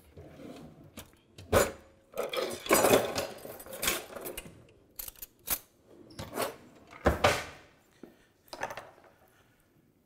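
Irregular clattering and clinking of pots, pans and utensils being moved and handled on a kitchen stove and bench.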